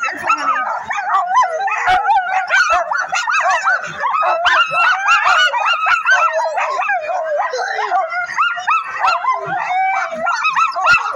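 A pack of sled dogs barking and yelping all at once, a continuous chorus of many overlapping calls: harnessed race dogs clamouring to go at the start line.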